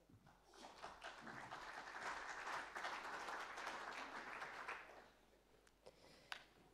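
Audience applauding, building up about half a second in and dying away at about five seconds, followed by a couple of faint clicks.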